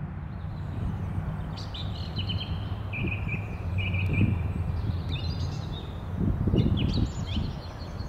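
Small birds chirping in short, high trills, in two spells, over a steady low hum.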